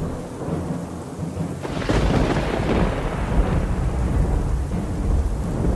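A low, steady music drone, then a thunder sound effect breaks in a little under two seconds in and carries on as a long, deep rolling rumble with a hiss on top.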